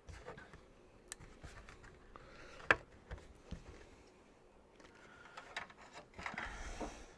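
Small plastic building bricks clicking and tapping against a baseplate as pieces are pushed on, a few sharp separate clicks with the loudest about two and a half seconds in. The pieces are not sticking easily to the board.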